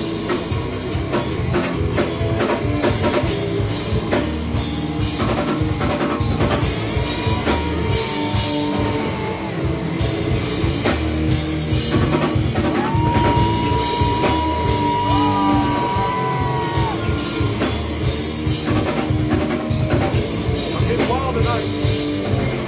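Rock band playing live, with a busy drum kit and long held high notes that bend in pitch.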